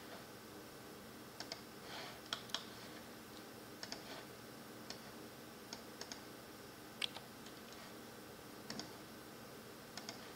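Computer mouse clicks, about a dozen scattered irregularly, several in quick pairs, over a faint steady hum.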